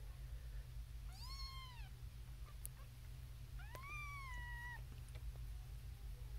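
Young Siamese kitten mewing twice, high-pitched cries that rise and then fall, each just under a second long.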